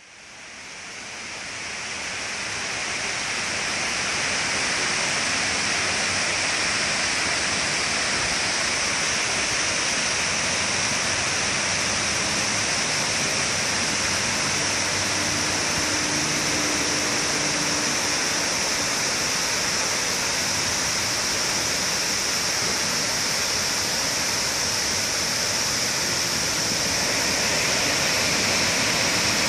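Steady rush of falling water from the volcano attraction's waterfalls, fading in over the first few seconds and then holding level.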